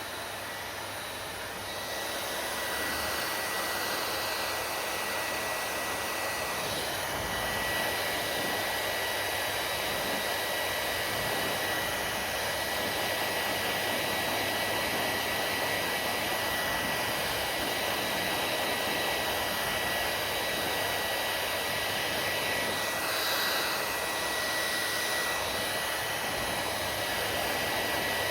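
Hair dryer running steadily: a constant rush of blown air with a thin, steady high whine, getting slightly louder about two seconds in.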